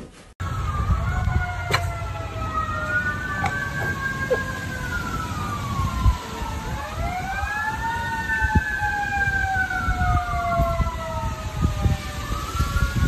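Sirens wailing, several tones sliding slowly up and down and overlapping one another, over a low rumble. A dog, head raised, tries to howl along to them. The sound starts abruptly about half a second in.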